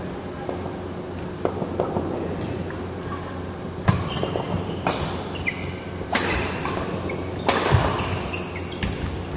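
Badminton rally in a large echoing hall: sharp racket strikes on the shuttlecock, four loud ones in the second half about a second apart, with fainter hits earlier and short squeaks of shoes on the court floor.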